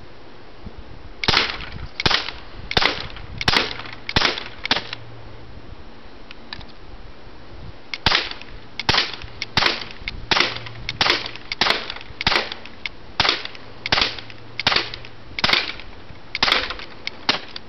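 Crosman P10 CO2 BB pistol firing shot after shot, each a sharp pop: six in quick succession, a pause of a few seconds, then about a dozen more under a second apart. Near the end the last shots turn into thinner clicks, the change in sound that shows the 20-round magazine has run empty.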